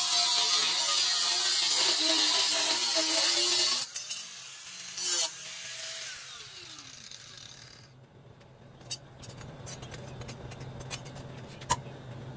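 Angle grinder with a cutoff wheel cutting through a steel circular saw blade, a loud hiss of the wheel in the metal with the motor pitch wavering under load, for about four seconds. The grinder then comes off the cut, gives one short burst and winds down with a falling whine, followed by a low hum and a few sharp clicks.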